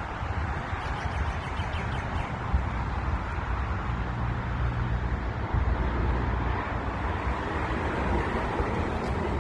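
Wind buffeting a phone's microphone outdoors: a steady rushing noise with an uneven low rumble.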